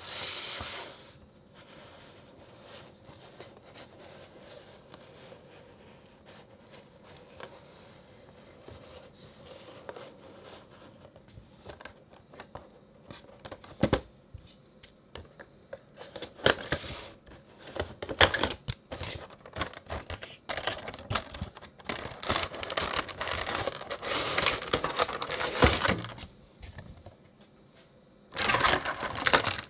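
A cardboard collectible-figure box and its clear plastic insert being handled and opened by hand: knocks and taps of the box on the desk, then cardboard rustling and plastic crinkling and scraping as the figure in its clamshell is slid out.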